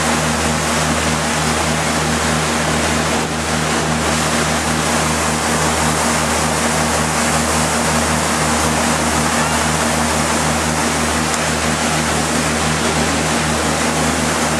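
Motorboat engine running at speed with a steady low drone, under the constant rush of water churned up by the hull and its wake.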